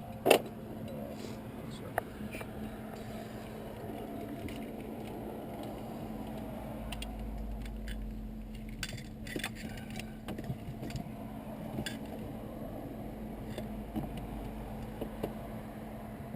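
Scattered small clicks and rattles of a wire bundle and its plastic connectors being handled, with one sharp click just after the start, over a steady low hum.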